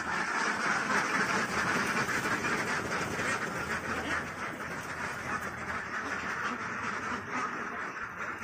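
A large flock of domestic ducks quacking without pause, many calls overlapping at once.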